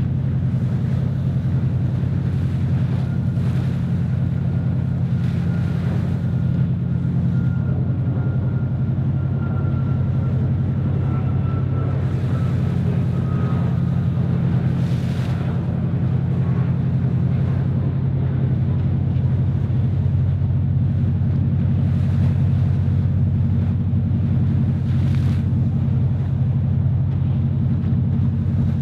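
Steady low drone of a boat's engine under way, with water rushing past. A faint high whine glides slightly down in pitch during the first half, and a few brief splashing surges come later.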